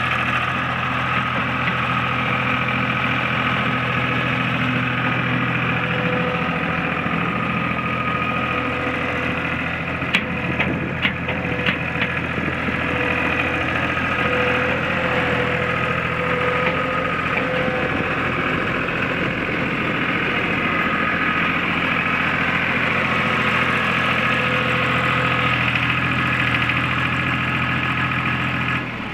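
2002 John Deere 240 skid steer's three-cylinder diesel engine running steadily, its low note shifting about seven seconds in. A short run of sharp clicks comes about ten to twelve seconds in.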